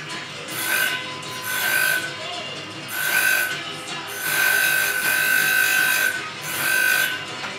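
Electric piston ring gap grinder filing the end of a piston ring in short irregular bursts, each a steady whine with grinding hiss as the ring meets the wheel; the longest burst, about halfway through, lasts nearly two seconds. Music plays underneath.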